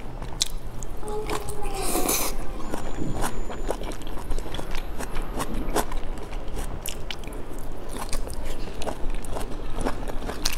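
Close-up biting and chewing of a boiled dumpling dipped in chili sauce: wet, smacking mouth sounds with many small clicks, and a brief rush of noise about two seconds in.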